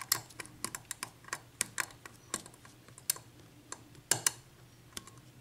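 Irregular, sharp little metallic clicks and taps of lock-picking tools working in a 7-pin Dorma mortise lock cylinder.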